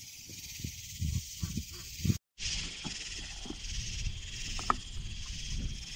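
A steady high chorus of night insects with scattered knocks and rustles; the sound cuts out abruptly about two seconds in, then the insect chorus returns over a low rumble and occasional crackles from a small kindling fire.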